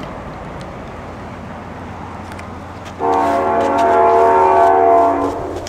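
Amtrak GE Genesis diesel locomotive approaching with a steady rumble, then sounding its horn about three seconds in: one loud chord held for about two seconds that then stops.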